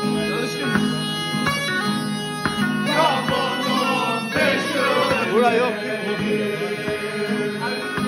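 Tulum (Black Sea bagpipe) playing a Turkish folk tune in steady, reedy sustained notes, with guitar accompaniment. A group of men sings along for a few seconds in the middle.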